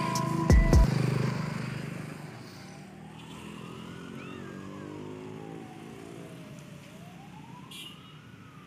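A siren wailing slowly, rising and falling twice, over a faint hum of city traffic; music fades out in the first couple of seconds.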